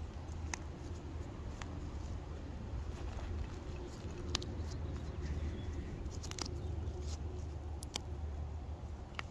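Blocks of gym chalk crunching and crumbling between fingers, with scattered sharp cracks, the loudest about four seconds in, over a steady low hum.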